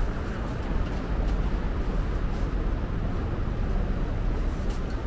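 Steady city street noise: a low rumble of road traffic, with a few faint clicks.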